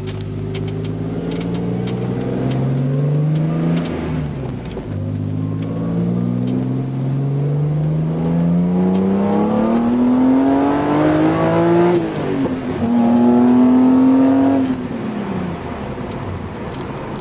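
BMW Z3 M Coupe's S54 straight-six accelerating hard through the gears. The engine note climbs, drops at a gear change about four seconds in, then climbs for longer to a second shift near twelve seconds. It holds steady briefly, then falls away as the throttle is lifted.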